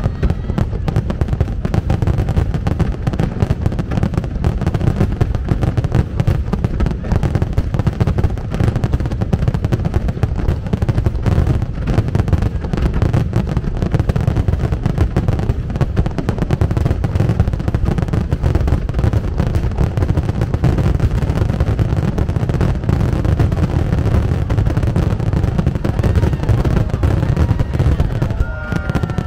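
Fireworks display firing a dense, continuous barrage of bursts and deep booms, with a few high whistles gliding in pitch near the end.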